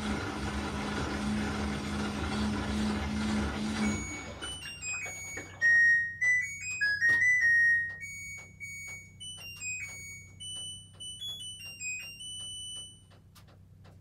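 LG WT7300CW top-load washer's drum spinning during the spin test, with a steady hum, stopping about four seconds in. The washer then plays its electronic end-of-cycle melody of high beeps, signalling a complete and successful test cycle, while a run of faint regular clicks follows as the machine settles.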